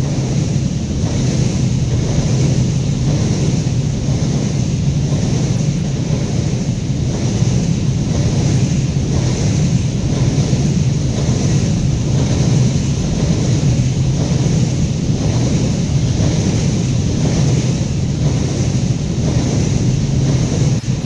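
Babaranjang coal train's open-top wagons rolling past close by: a steady, loud rumble of steel wheels on the rails.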